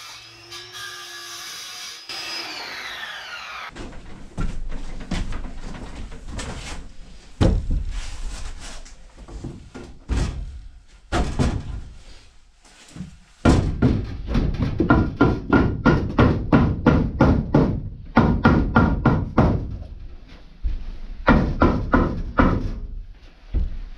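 Hammer blows on the camper's wooden wall framing, knocking out rotten studs: scattered bursts of strikes at first, then long runs of quick, even blows with a metallic ring.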